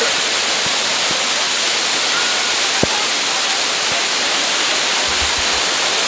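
Panval waterfall's water pouring over rock close by: a loud, steady rush and splash of falling water, with one small knock about three seconds in.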